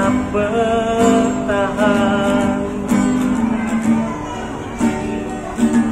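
An Indonesian song as background music: a voice singing over strummed acoustic guitar, the sung line holding a long note in the first few seconds before the guitar carries on alone.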